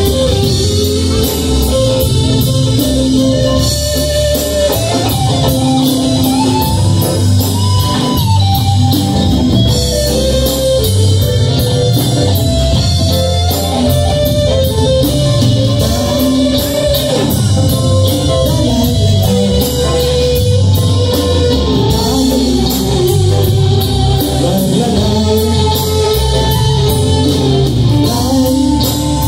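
Live rock band playing a song, with a male voice singing over drum kit, electric bass, electric and acoustic guitars and congas.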